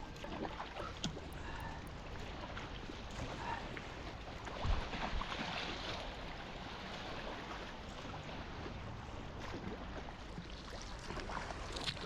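Water splashing and lapping around a kayak as it is paddled on calm sea, with one louder low thump about five seconds in.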